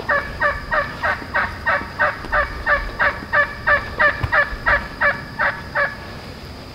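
A long run of hen-turkey yelps, about eighteen notes at roughly three a second, each dropping in pitch, ending about six seconds in.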